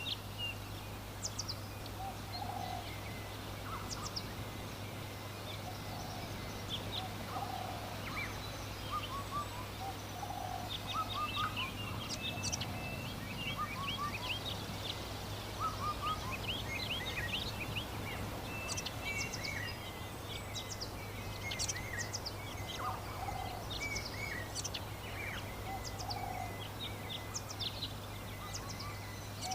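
Countryside ambience of many birds chirping and calling, with a lower call repeating every few seconds, over a steady low hum.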